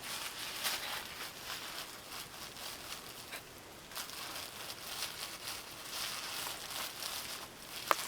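Bubble wrap crinkling and rustling, with small crackles throughout and one sharp pop just before the end.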